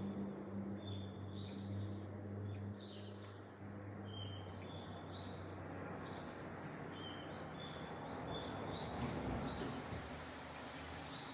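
Garden birds chirping, short high calls repeating about once or twice a second over a steady background hiss. A low hum in the first few seconds dies away about a third of the way in.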